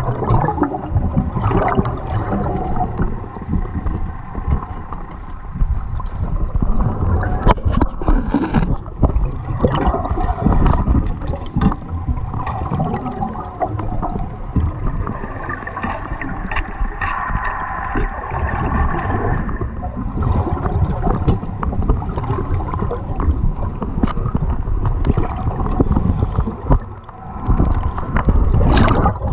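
Underwater sound through a camera housing: a scuba diver's exhaled bubbles gurgle in stretches of a few seconds over a constant low rumble of moving water.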